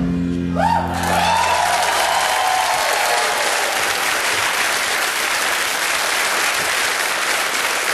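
Studio audience breaking into loud applause and cheering, with shouts rising out of it in the first second or two. Background music fades out under it during the first few seconds.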